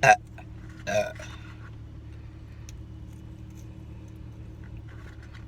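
A person burping twice in quick, short burps about a second apart, the first the louder, over a steady low hum.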